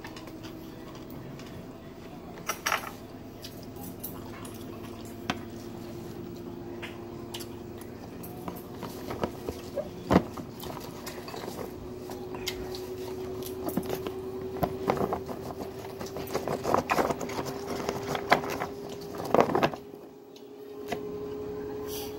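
Eating utensils clicking and clinking against ceramic and metal bowls in scattered taps, busiest in the second half, over a steady hum that slowly rises in pitch.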